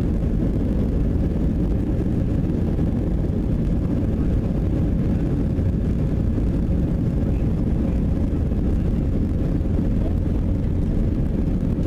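Cabin noise inside an Airbus A320 taxiing: a steady low rumble and hum from the engines at taxi power, with a faint steady tone above it.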